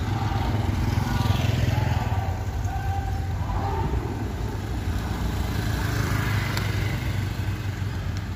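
Small motor scooters riding past on the road. The engine sound is loudest about one to two seconds in, as one passes close, then settles.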